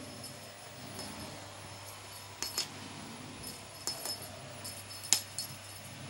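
A small bell jingling in a few short shakes as a cat paws and bites a feather wand toy, loudest about five seconds in.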